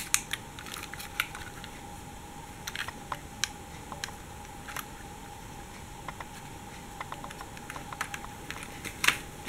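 Light, irregular clicks and taps of a Siku articulated toy bus being handled and turned over in the hand, with a few louder clicks about nine seconds in. A faint steady hum lies underneath.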